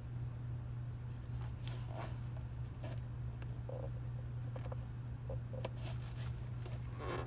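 Faint scattered clicks and scratches of hands handling a turn-signal relay in its rubber mount, pressing it into its clip, over a steady low hum.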